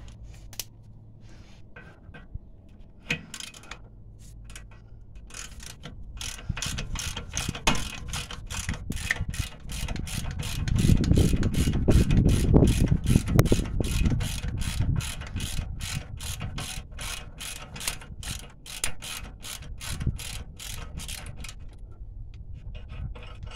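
Hand socket ratchet clicking in steady strokes, about three a second, as it winds out a loosened 21 mm rear brake caliper bracket bolt. A louder low rumble runs under the clicks through the middle.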